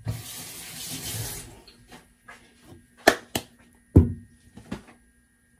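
A brief rush of hissing noise, like a tap run for a moment or something rustled, then two sharp clicks and a louder knock with a low thud: handling noises in a kitchen.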